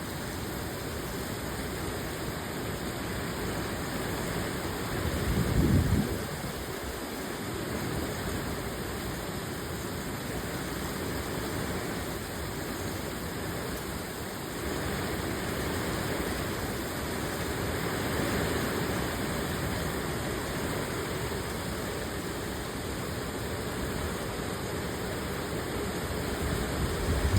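Heavy rain falling, a steady rushing hiss, with a brief louder low rumble about five to six seconds in.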